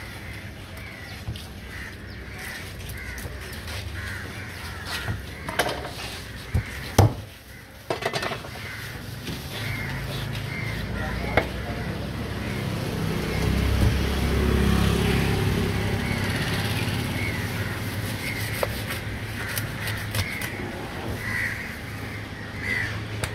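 Crows cawing over and over, with a few sharp knocks of a knife striking a wooden chopping block about six to seven seconds in, over a low steady hum.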